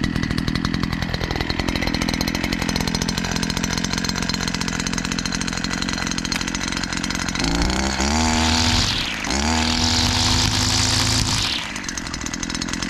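Petrol brush cutter with a nylon-line trimmer head running at idle, then revved up twice, each rev held for a couple of seconds before the engine drops back to idle near the end.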